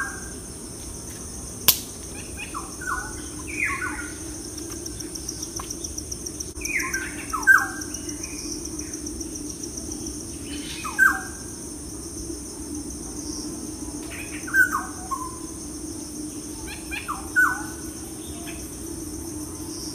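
Short bird chirps recurring every few seconds over a steady, high-pitched insect drone, with a low hum underneath. One sharp click comes a little under two seconds in.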